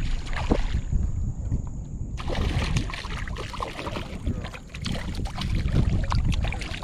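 Wind rumbling on the microphone out on a kayak. From about two seconds in there is a run of small clicks and knocks from handling, as a hooked black drum is fought and brought in.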